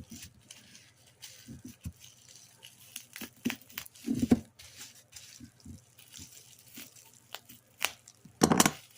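Paper and plastic packaging rustling, crinkling and tearing in irregular bursts as items are pulled out of a mailed package, with louder rustles about four seconds in and near the end.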